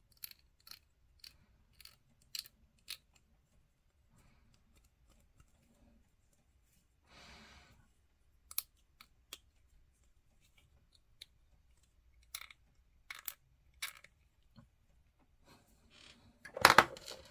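Hobby knife blade scraping a small plastic miniature part to clean it up: a scattered string of short, sharp ticks and scrapes with pauses between. A louder clatter of handling comes near the end.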